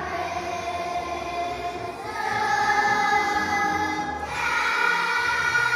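A group of young children singing together, holding long notes that step up in pitch about two seconds in and again about four seconds in.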